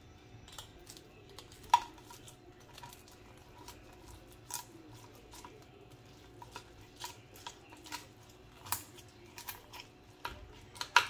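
Crispy skin of air-fried pork belly crackling and crunching as a knife saws through it, in irregular sharp crackles with a few louder cracks.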